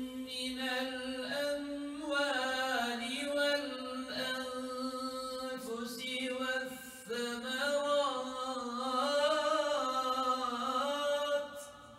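A man's solo unaccompanied voice chanting a melismatic Islamic recitation, with long held notes that wind up and down. It stops about half a second before the end.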